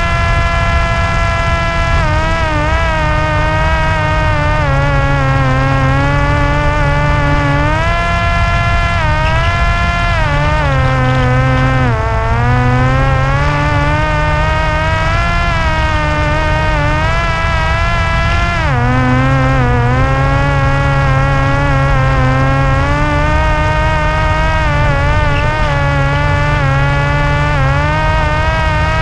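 Parrot Disco's electric pusher motor and propeller whining in flight, its pitch rising and falling with the throttle and dropping sharply about twelve and nineteen seconds in, over heavy wind rumble on the microphone.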